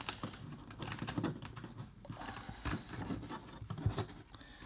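2018 Topps Star Wars Galaxy trading cards being handled and flipped one after another, giving soft, irregular taps and rustles of card stock.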